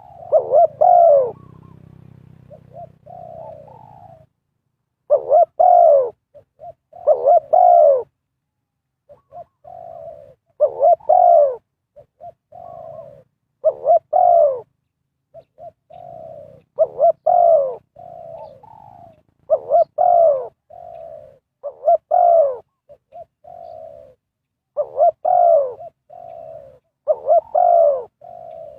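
Spotted dove cooing in repeated phrases, each a run of short coos with louder arching notes that fall in pitch, one phrase every two to three seconds.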